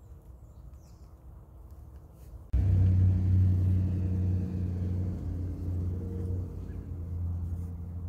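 A low, steady engine hum cuts in abruptly about two and a half seconds in and slowly eases off, over a quiet outdoor rumble.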